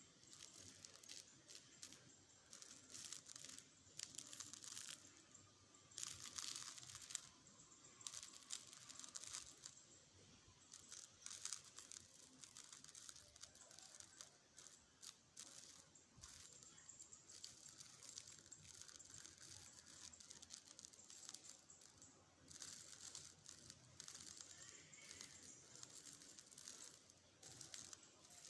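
Faint, irregular rustling and crinkling, in uneven patches, with the busiest stretches in the first third.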